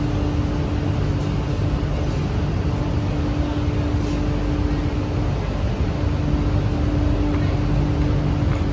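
CRRC Qingdao Sifang Q-Train metro car standing at an underground platform with its doors open: a steady hum and rumble of the train's equipment and station ventilation, with a steady humming tone that drops out briefly about halfway. Faint passenger bustle sits underneath.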